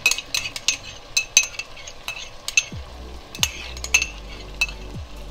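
Chicken pieces frying in masala in a pot, sizzling steadily, as yogurt is scraped in from a ceramic ramekin, with a spoon clinking sharply many times against the bowl and pot.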